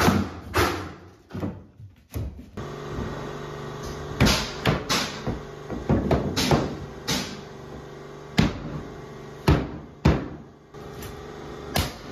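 About a dozen irregular, sharp hammer knocks driving a hardwood floorboard into place, pounding it under a door casing and tapping it snug against the existing floor. A steady hum runs underneath from about two and a half seconds in until near the end.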